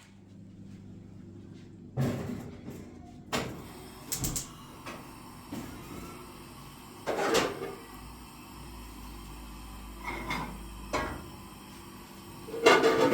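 A series of separate knocks and clunks, a few seconds apart, like objects or cupboard doors being handled, over a steady low hum.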